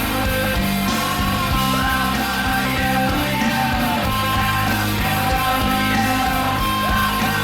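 Rock music with a male voice singing over guitars and a steady beat.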